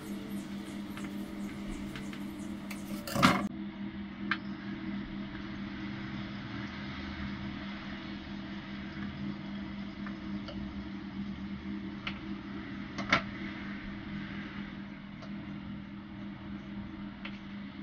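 Kitchen knife slicing through a log of biscuit dough, with a few sharp knocks as the blade strikes the countertop, the loudest about three seconds in. A steady mechanical hum runs underneath.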